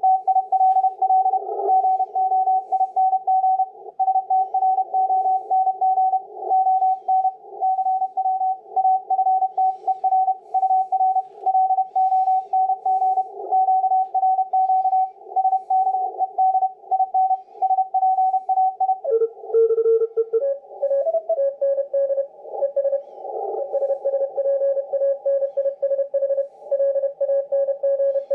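Morse code (CW) signals received on an ICOM IC-7300 HF transceiver on the 40-metre band: the keyed beeps of two or more stations at different pitches overlap. About two-thirds of the way through the radio is tuned slightly and a different set of stations comes in, the strongest lower in pitch.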